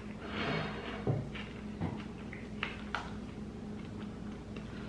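Bites and chewing of white-coated creme sandwich cookies: a few short, soft crunches and clicks.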